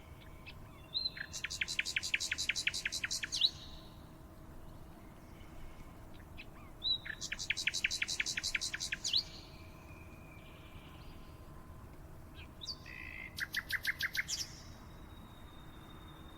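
A songbird singing three trilled phrases, each a rapid run of repeated high notes lasting about two seconds, with pauses of a few seconds between them.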